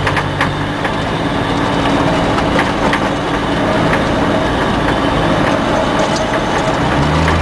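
Vehicle engine running and tyre and road noise heard from inside the cab, with scattered rattles and creaks from the interior. A deeper low drone sets in near the end.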